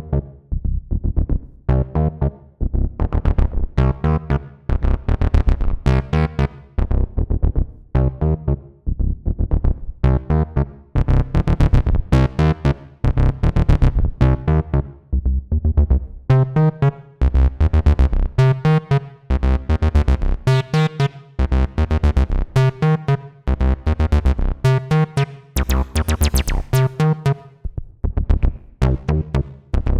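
Behringer TD-3-MO analog bass synthesizer playing a 303-style acid bassline pattern: a fast, even run of short notes whose brightness opens and closes as the filter moves.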